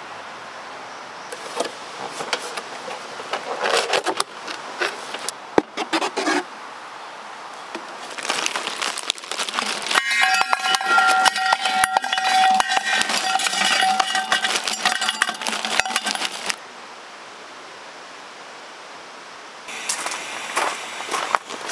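Small metal objects clinking and rattling in three bouts over a steady background hiss. The middle bout is the loudest, with a clear ringing tone through it.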